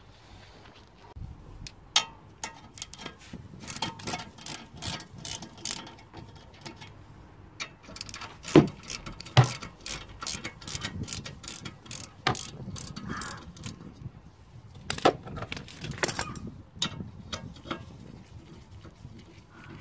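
Socket ratchet clicking in quick runs as it turns a brake caliper bolt, with several louder sharp metal knocks in between.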